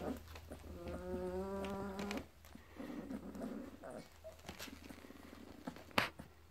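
Newborn puppies whining and grunting as they squirm together: one long, steady whine about a second in, then low grunting. A sharp click near the end.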